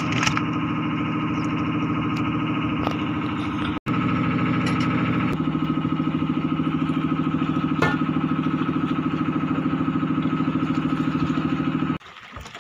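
Fishing boat's engine running steadily with an even, low hum, with a few light clicks over it; it cuts off abruptly near the end.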